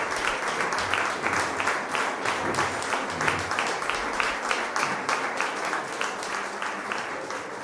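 Audience applauding with dense clapping, slowly fading in the second half.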